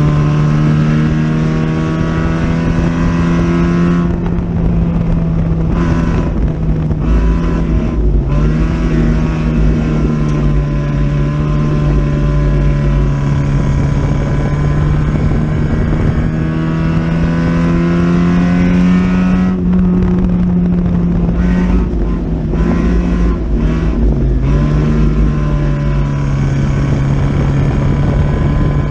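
Four-cylinder dirt-track race car's engine running hard, heard from inside the cockpit. Its pitch sags and dips sharply twice, about sixteen seconds apart, as the car goes through the turns, then climbs again down the straights.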